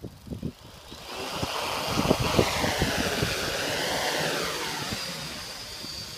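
Quadcopter's four 1000kv brushless motors and propellers spinning up into a loud whine about a second in; the pitch climbs, wavers, then drops as the sound eases near the end. Wind buffets the microphone throughout.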